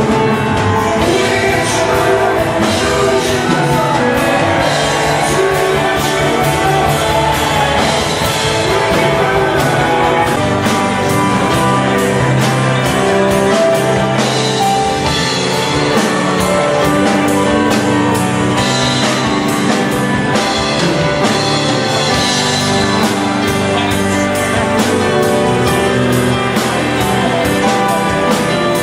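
Music: a song with singing over a band, with a steady beat at an even, loud level.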